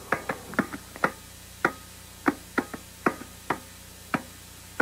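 A series of about a dozen sharp clicks at uneven intervals, each with a brief ringing tone.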